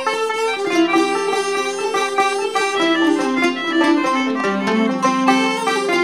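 Instrumental background music: a quick run of plucked string notes over held tones.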